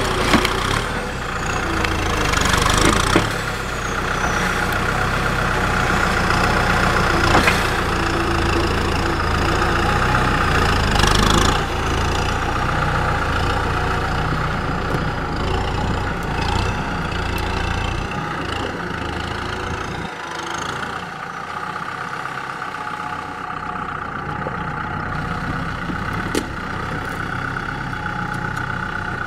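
Kubota M6040SU tractor's four-cylinder diesel engine running steadily while its front blade pushes soil and brush, with a few short knocks in the first half. The deep low rumble falls away about two-thirds of the way through.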